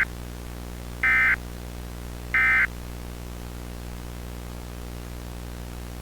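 Emergency Alert System end-of-message signal: short bursts of harsh, buzzing SAME digital data tones, the end of one and then two more about 1.3 s apart. After the bursts only a steady electrical hum and hiss remain.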